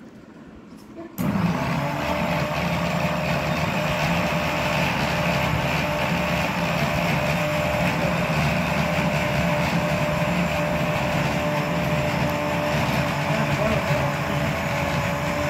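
Electric mixer grinder switched on about a second in, its motor running steadily while grinding walnut and green chilli chutney in the steel jar.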